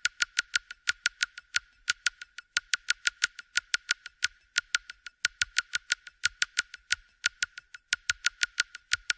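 Rapid, sharp clicking, about five or six clicks a second at a slightly uneven pace, thin and high with no low end.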